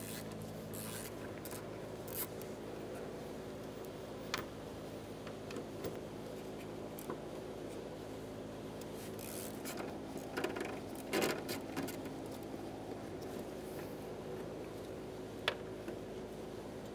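Faint clicks and scrapes of a ratchet and 8 mm socket loosening the nuts on a fuel pump access cover, with a brief flurry of them a little past the middle, over a steady low hum.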